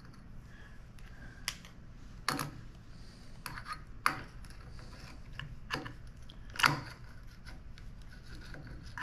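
Metal tools clicking and scraping against a Mag-Lite flashlight's aluminium tube, with about five sharper clicks at irregular intervals, as a stuck, corroded battery is worked loose.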